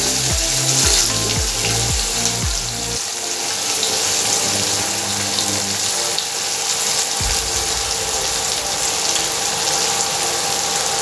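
Chopped onions sizzling in hot oil in a steel kadhai, a steady loud hiss as they fry in a cumin and green-chilli tempering. Background music with a low repeating bass line plays underneath, dropping out for a few seconds in the middle.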